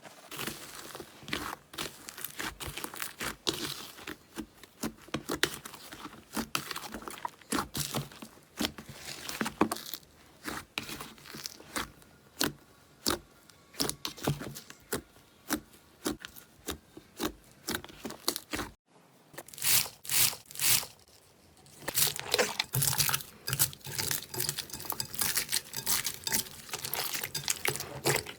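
Slime being squeezed and pressed by hand, giving an irregular run of sticky clicks, pops and crackles. There is a short break about two-thirds of the way through, after which the crackling goes on.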